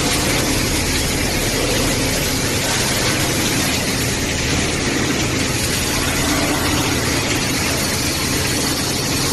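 Steady factory machinery noise: a constant hiss with a low hum underneath, unchanging throughout.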